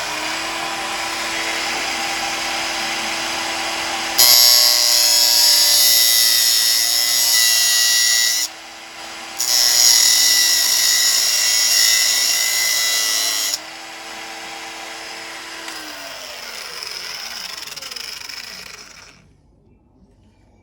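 An angle grinder is cutting into a steel sprocket welded onto a motorcycle countershaft, in two long grinding passes with a brief break between them. Its motor whine then winds down as the grinder coasts to a stop near the end.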